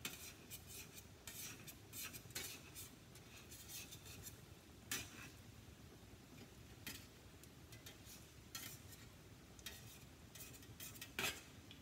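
Metal slotted spatula scraping and tapping against a plate held over a skillet: a series of short, irregular scrapes and clinks.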